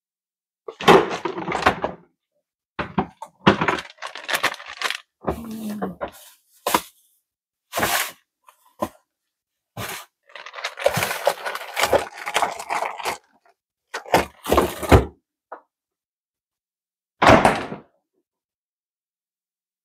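Eating noises close to the microphone: a string of short, irregular scrapes, clicks and crunches from utensils on a dish and chewing, with brief silent gaps between them.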